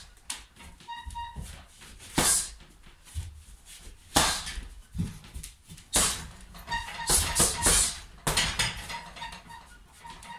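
Punches landing on a hanging heavy punching bag: single blows about two seconds apart, then a quicker flurry of several hits near the end.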